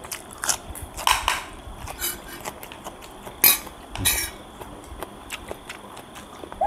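Spoons clinking and scraping against plates and a stainless steel bowl during a meal: a scatter of light, irregular clinks, the loudest two a little past three and a half seconds and about four seconds in.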